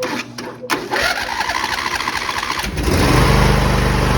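A click, then the John Deere lawn tractor's starter cranks the engine in rhythmic pulses for about two seconds before it catches and runs steadily. The starter is being fed through the solenoid by a jumper wire from the fuse, and the engine starting shows the no-crank fault is cured.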